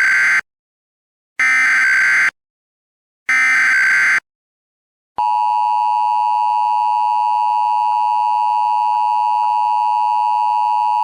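Emergency Alert System header and attention signal. Three short electronic data bursts (the SAME header), each just under a second long with about a second of silence between them. About five seconds in, the two-tone EAS attention signal starts, a steady blaring dual tone that holds.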